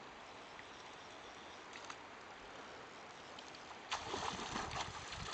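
Steady faint rush of river current, then about four seconds in a hooked steelhead thrashing at the surface: a sudden burst of splashing lasting over a second.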